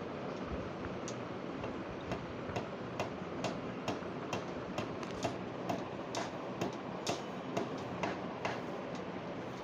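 Regular light ticking, about two ticks a second, clearer from about two seconds in, over a steady hiss.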